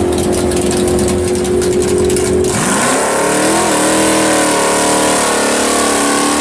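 Drag car's engine revving through a burnout, rear slicks spinning and smoking. The engine note holds steady at first, then about two and a half seconds in it dips and climbs back, wavering.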